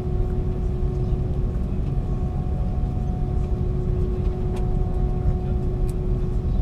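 Steady cabin hum inside a parked Airbus A330-200: a low rumble with a constant whine on top. A couple of faint clicks come through about two-thirds of the way in.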